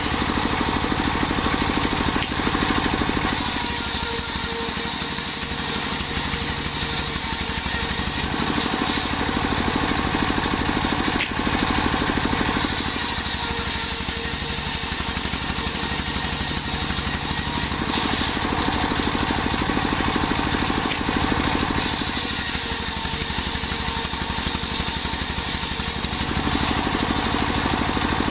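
A single-cylinder stationary diesel engine runs steadily, belt-driving a large circular saw blade. Three times the blade rips lengthwise through a jackfruit-wood plank for about four to five seconds, and each cut lays a brighter rushing saw sound over the engine's steady pulse.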